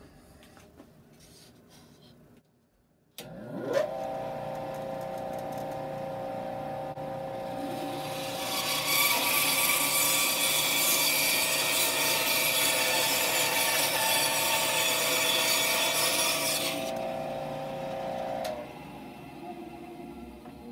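Rikon 10-305 10-inch bandsaw switched on about three seconds in, its motor whine rising and settling to a steady speed. From about eight seconds in, the factory blade cuts through a weathered wood block for some eight seconds, a loud hissing cut over the motor. The saw is then switched off and winds down near the end.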